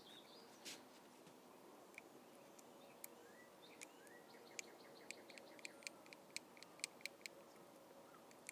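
Near silence, with faint, short bird chirps that start about two seconds in and come about three a second near the end.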